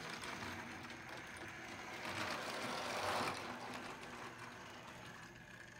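Model locomotive Princess Victoria running on the layout track: its small electric motor whirring and its wheels rattling along the rails, growing louder about two to three seconds in, then fading.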